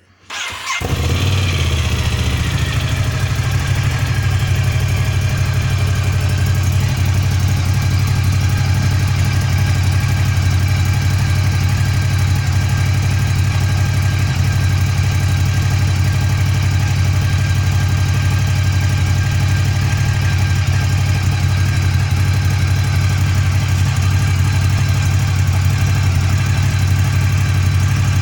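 Ducati Scrambler 1100's air-cooled L-twin with its stock exhaust starting up within the first second, then idling steadily.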